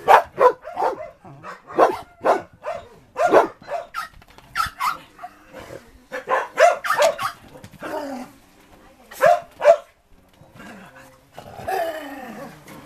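Dogs barking during rough play: many short, sharp barks in quick clusters. The barking pauses about ten seconds in, then a longer, drawn-out dog vocalisation comes near the end.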